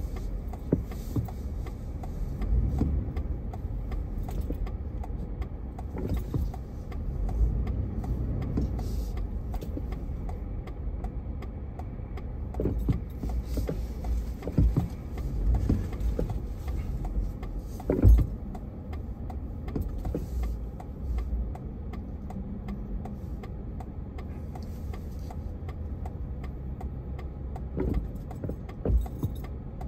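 Car-interior noise in slow stop-and-go traffic: a steady low rumble of engine and road, with scattered short knocks and rattles, the loudest about 18 seconds in.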